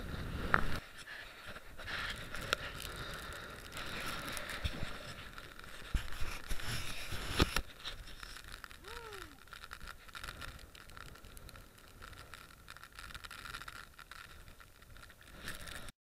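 Strong wind and rain buffeting the camera microphone, with crackling, rustling and a few sharp knocks from the camera being handled. The sound cuts off suddenly near the end.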